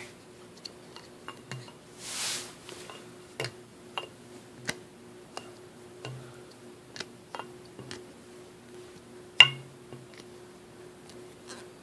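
Scattered light taps and clinks of wine glasses and a cork from a wicker picnic set being handled, with a brief scraping hiss about two seconds in and one sharper, louder click about nine and a half seconds in.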